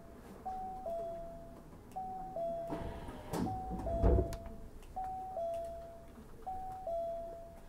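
Two-note electronic ding-dong chime, a higher note then a slightly lower one, repeating about every one and a half seconds. A louder thud comes about four seconds in.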